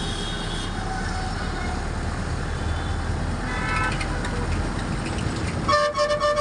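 Road traffic running steadily, with a vehicle horn honking loudly near the end.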